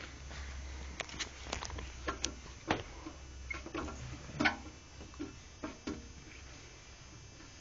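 A baby's hands patting and slapping a mirror's glass in irregular taps, the loudest about four and a half seconds in.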